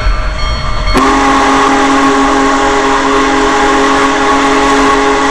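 Big Boy steam locomotive's whistle sounding one long blast of several notes at once, starting suddenly about a second in and held steady, over a low rumble.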